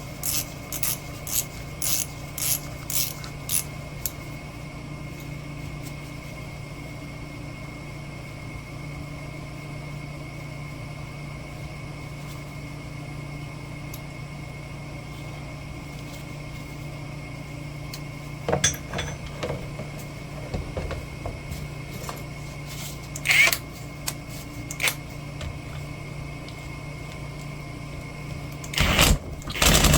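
A hand ratchet clicking in quick strokes, about two a second, for the first few seconds. Then a steady mechanical hum with a faint high whine, broken by a few scattered metal clinks and knocks as parts are handled during reassembly of the rebuilt hydraulic drive motor.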